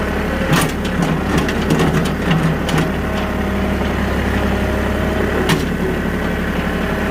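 Engine of the vehicle towing a skid steer on a chain, running steadily at low speed, with a few sharp clanks, the loudest about half a second in and near the end.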